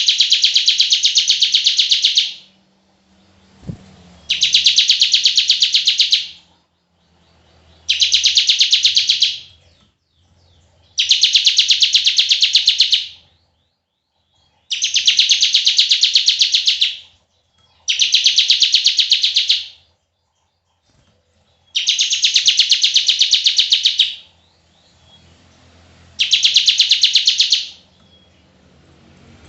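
Ciblek (bar-winged prinia) singing its long buzzing 'bren' trill, a very fast high rattle given in eight phrases of about two seconds each with short pauses between.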